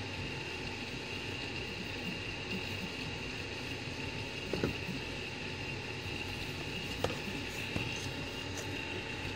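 3D printer running mid-print: a steady whir of its fans and motors with a constant high whine, and a few faint ticks around the middle and later.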